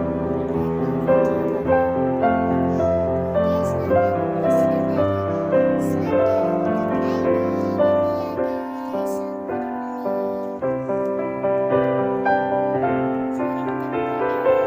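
Background music led by piano, gentle notes struck in a steady flow.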